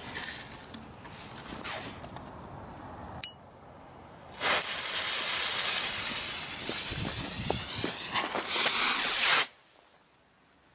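Stick rocket firework burning and launching: a loud, steady hiss of its fuse and motor starting about four seconds in and lasting about five seconds, then cutting off suddenly. Before it, soft rustling and clicks as the rocket is set into a launch tube in the ground.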